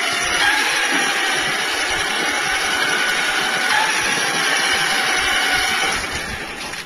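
Autonomous RC model truck's motor and drivetrain running steadily as it drives along the hallway floor, getting quieter in the last second.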